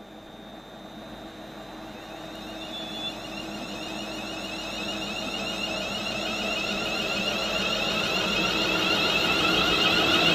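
An electric train approaching at speed, getting steadily louder, with a high steady whine and ringing over the rushing noise.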